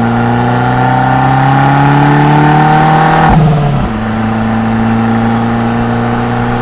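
Abarth 500C's 1.4-litre turbocharged four-cylinder through an Akrapovič exhaust, pulling under acceleration with its note climbing steadily. About three and a half seconds in the pitch drops at an upshift, and the engine pulls on at the lower pitch.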